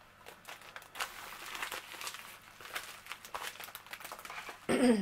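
Plastic padded mailing envelope and small plastic bags crinkling and crackling irregularly as they are handled and contents are pulled out. A short vocal sound near the end.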